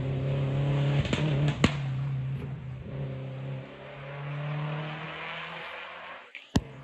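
Peugeot 206 WRC rally car's turbocharged four-cylinder engine running at a steady note, with sharp exhaust pops and bangs: a quick cluster of cracks about a second in and one loud bang near the end as the engine note falls away.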